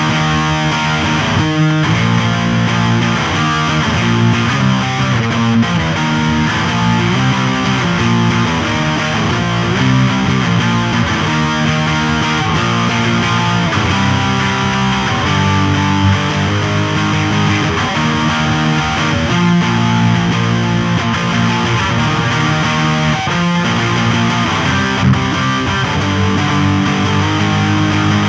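Distorted electric guitar playing heavy rock riffs, loud and without a break, the chords changing every second or so.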